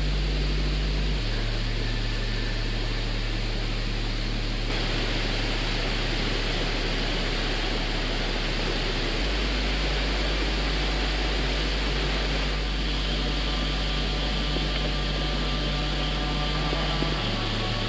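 Steady rushing of a small mountain stream, with a low hum underneath. Both shift abruptly a few times, as at edits between shots.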